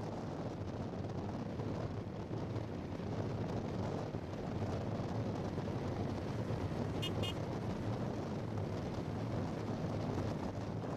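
Steady outdoor rumble of wind and distant motor vehicles, with two short high chirps about seven seconds in.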